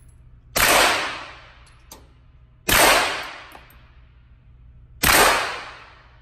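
Three single shots from a suppressed B&T APC9 9mm carbine, about two seconds apart. Each shot has a long echoing decay off the walls of the indoor range.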